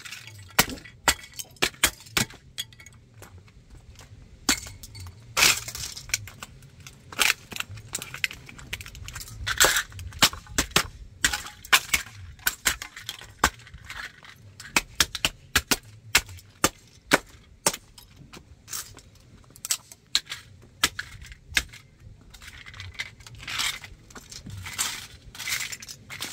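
Plastic and metal parts of a toy tanker truck cracking and snapping under sandal heels and soles, with loose pieces scraping and clinking on concrete. The cracks come in irregular sharp bursts, several a second.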